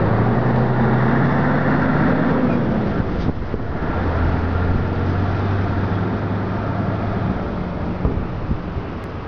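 Steady low engine rumble of road traffic, with a humming tone that bends slowly about two seconds in.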